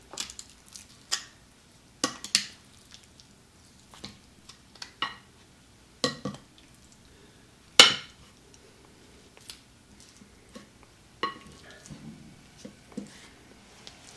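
Kitchen tongs clicking and clacking against a ceramic plate while raw chicken thighs are turned over: a dozen or so short, scattered clicks, the loudest about eight seconds in.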